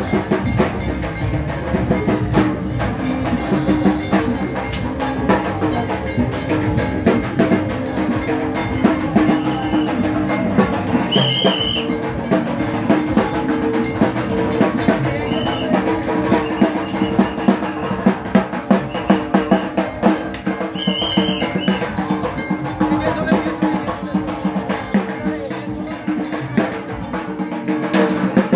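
Music with drums and percussion keeping a steady rhythm.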